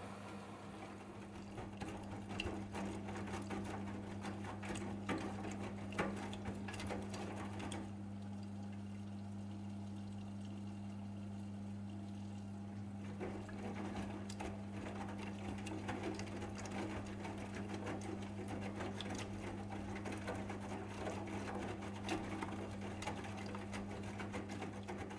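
AEG Lavamat 8000 Series front-loading washing machine tumbling a load of towels and socks in rinse water: sloshing and splashing with many small knocks as the drum turns, over a steady low hum. The splashing eases off for a few seconds around the middle, then picks up again.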